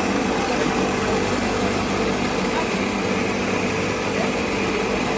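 Electric motor driving a peanut butter grinding mill, running with a steady hum and an even whirr that doesn't change.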